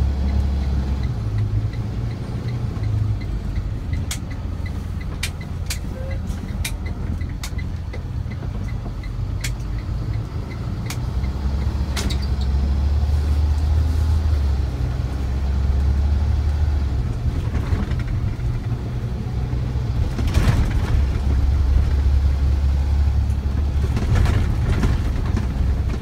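Engine and road rumble heard inside a vehicle's cab while driving on a snow-covered road, with scattered sharp clicks during the first half and a couple of louder knocks later on.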